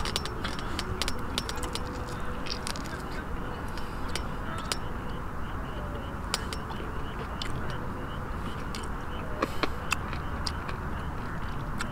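A person eating barbecued chicken by hand: irregular small clicks of chewing and handling the pieces, over a steady outdoor background hum.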